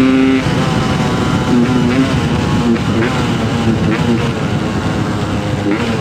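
Yamaha RX King's single-cylinder two-stroke engine held at steady high revs, then the throttle is closed about half a second in; the engine note then rises and falls unevenly as the motorcycle is ridden, over a low rushing noise.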